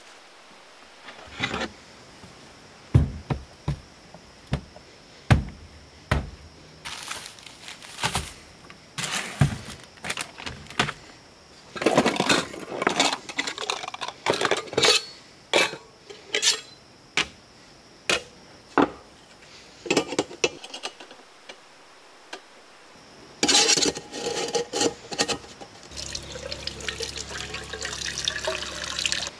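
Camp cooking gear handled at a car trunk: a long series of separate clinks, knocks and rattles as pots and stove parts are taken out and set down. In the last few seconds, water runs steadily from a hose spray nozzle into a cooking pot, filling it.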